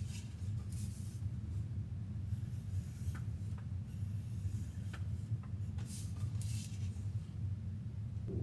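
Pencil scratching on paper in a few short strokes, over the steady low rumble of a moving sleeper train, with a few faint clicks.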